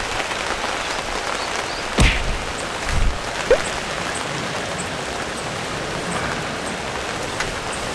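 Steady rain falling, an even hiss, with a sharp knock about two seconds in and a dull thump a second later.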